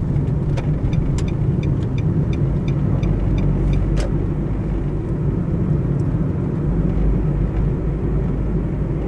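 Inside a moving car: a steady low rumble of engine and tyres on a paved road, with a few light clicks scattered through the first half.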